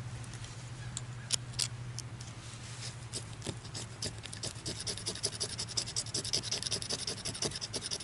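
Victorinox Hiker pocketknife blade scraping a magnesium fire-starter bar to shave off a pile of magnesium tinder. The short scrapes are scattered at first and come quicker and steadier from about halfway.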